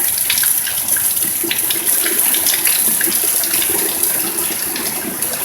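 Fairly heavy rain pouring down steadily, with many drops spattering.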